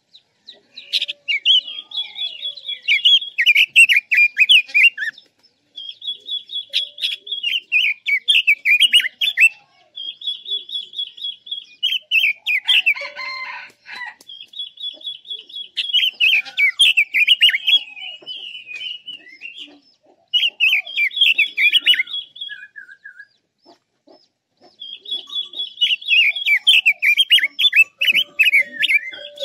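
Red-billed leiothrix (Pekin robin) singing its loud warbling song in six separate phrases a few seconds long, with short pauses between them. Each phrase opens with a fast run of high repeated notes, then tumbles down through quick warbled notes.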